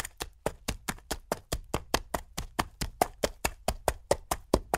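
Horse hooves clip-clopping on a paved street as the horse pulls a carriage, an even beat of about five hoof strikes a second.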